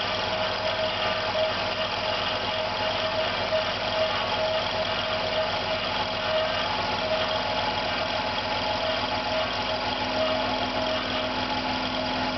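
Electric compressor running steadily under load, a continuous hum with several steady tones; a lower tone joins about ten seconds in. The compressor is failing.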